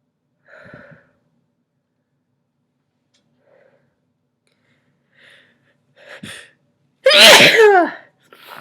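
A person with a head cold sneezes once, loudly, about seven seconds in, after a few quiet catching breaths. The sneeze carries a voiced cry that falls in pitch.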